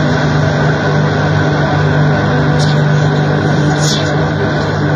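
Noise music: a loud, steady wall of dense noise over a low droning hum, with two short high hissing streaks a little past halfway.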